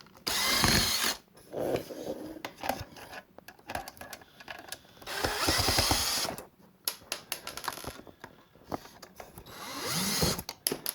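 Power drill-driver running in three short bursts of about a second each, backing the screws out of a hinge, with clicks and handling of the board between bursts.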